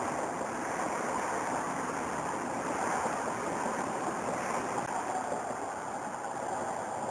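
Steady rushing background noise with no distinct calls or sudden sounds.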